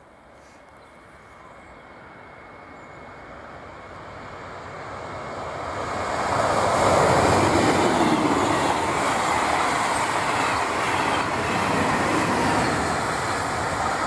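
Regional passenger train approaching and passing at speed: its noise on the rails grows over about six seconds and then stays loud as the train goes by.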